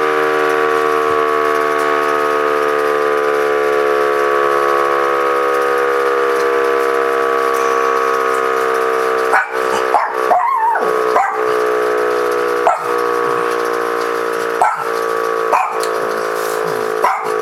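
Federal Signal C5 siren winding down, its steady tone falling slowly in pitch. From about halfway through, a dog barks about eight times over it.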